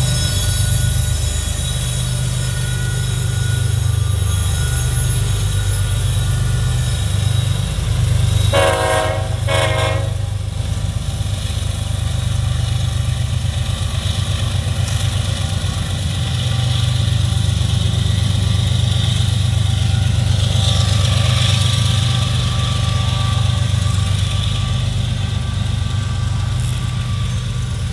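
Diesel freight locomotives running with a steady low rumble, with a short two-part blast of a locomotive air horn about nine seconds in.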